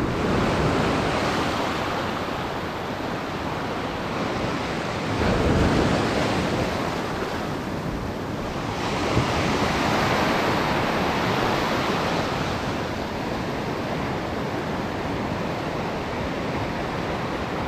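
Sea surf washing onto the shore with wind on the microphone; the wash swells and eases, loudest about five seconds in and again around ten seconds.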